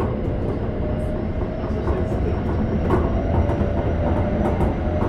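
Keikyu 600 series electric train heard from inside the passenger car while running: a steady wheel-on-rail rumble with the whine of its Toyo GTO-VVVF traction drive, the whine climbing slightly early on and then holding.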